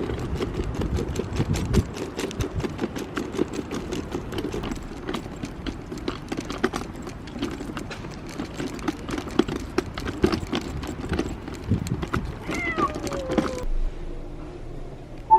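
A steady run of rapid clicks and clatter, with a cat meowing once near the end, one call falling in pitch. The clatter stops suddenly shortly before the end.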